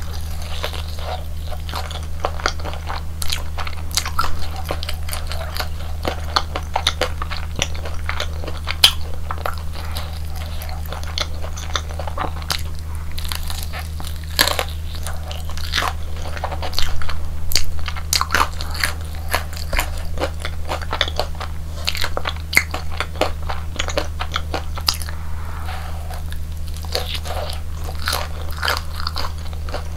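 Close-miked biting and chewing of crispy fried Korean hotdogs, with dense crackly crunches of the fried batter coating throughout and the loudest flurry about halfway through, over a steady low hum.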